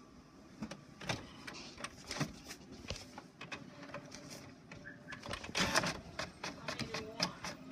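HP inkjet all-in-one printer running: a string of short mechanical clicks and whirs, growing busier and louder from about five seconds in.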